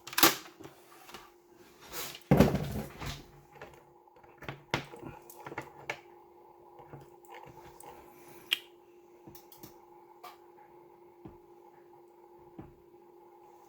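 Scattered clicks, knocks and handling noises from moving an oscilloscope probe and switching the scope's channel, the loudest at the very start and about two seconds in, over a faint steady hum.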